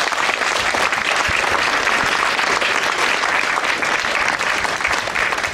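An audience applauding: steady, dense clapping from a crowd of a few dozen people.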